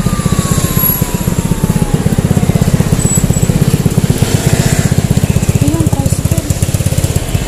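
Small motor scooter engine running at low speed close by, a steady rapid pulsing of single-cylinder firing strokes.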